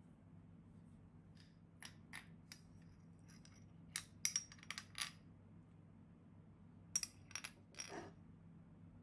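Metal spoon clinking and scraping against small ceramic bowls: scattered light clicks, a louder run of clinks about four seconds in, and another short cluster near the end, over a low steady hum.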